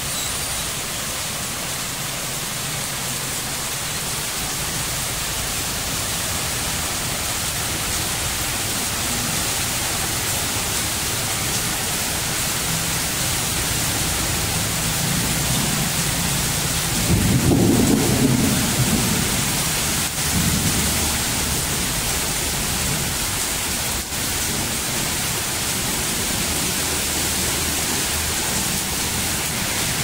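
Heavy rain pouring down on a wet street, a steady hiss, with a louder low rumble lasting about two seconds a little past halfway.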